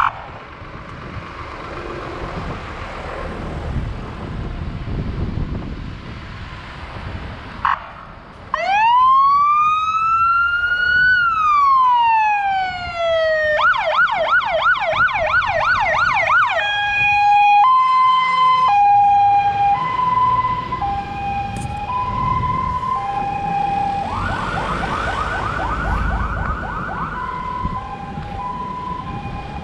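Fire engine's siren setting off as it leaves the station: after a brief blip, one slow wail rising and falling, then a fast yelp, then a two-tone hi-lo, a short burst of yelp again and back to hi-lo. For the first several seconds before it only passing traffic is heard.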